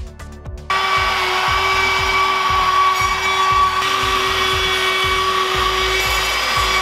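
Cordless drill/driver running steadily with a constant whine, driving screws into ceiling drywall. It starts abruptly under a second in, with a music beat underneath.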